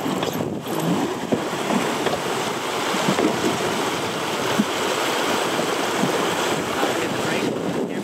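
Rushing water of a shallow river riffle, heard from an oar-rowed raft running down the chute: a steady wash of water noise.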